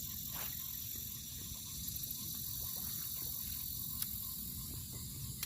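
High-pitched steady chorus of insects, with a low rumble of wind on the microphone and a few faint ticks, one sharper click about four seconds in.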